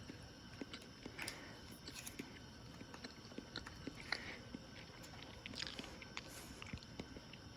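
Faint, scattered light clicks and taps from food and utensils being handled.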